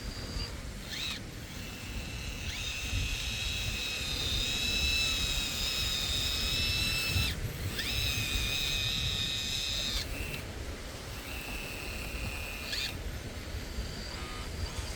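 Electric hydraulic pump of a Kabolite K961 RC excavator whining in spells of a few seconds. Each spell starts with a short rising spin-up and cuts off suddenly as the controls are worked, over a low wind rumble.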